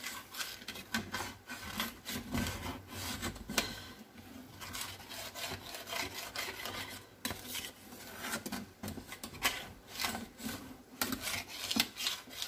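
Metal tongs scraping and stirring against the bottom of a stainless steel skillet in a quick, irregular run of rasping strokes, loosening the browned bits stuck to the pan into the added liquid.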